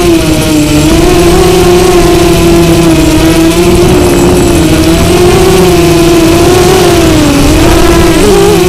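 Small drone's motors and propellers whining steadily, heard from a camera mounted on the drone itself, the pitch swaying gently up and down. Near the end the pitch wobbles unevenly.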